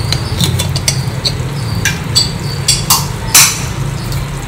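Aluminium pressure cooker lid being twisted open and taken off, then the inner steel container of cooked dal gripped inside: a run of sharp metal clicks and clanks, the loudest about three and a half seconds in. The pressure has already settled, so there is no hiss of steam.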